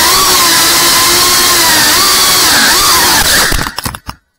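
Small FPV quadcopter's brushless motors whining, the pitch dipping and rising with the throttle. About three seconds in the sound breaks into choppy stutters and then cuts out.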